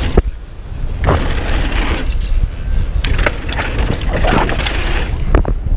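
Downhill mountain bike running fast over a rough dirt trail: a steady rumble of wind on the microphone and tyre noise, with the bike's chain and frame clattering and sharp knocks over bumps, the hardest just after the start and near the end.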